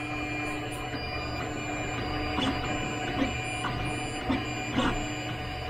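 Anet FDM 3D printer laying down its first layers on a glass bed: the stepper motors whine in short tones that change pitch as the print head moves, over a steady fan hum. Several light clicks come in the second half.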